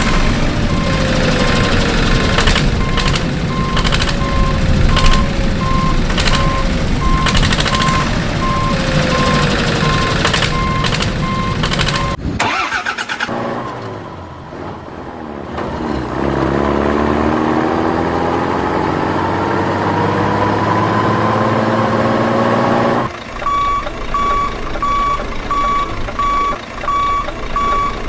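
Heavy truck engine running with a reversing alarm beeping, then the engine winding up in a long steady rise in pitch, then the reversing beeps again near the end.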